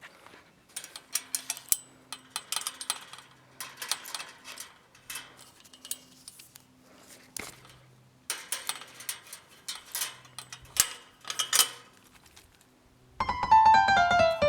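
Irregular bursts of metallic rattling and clinking from a dog moving about in her kennel. Piano music starts near the end.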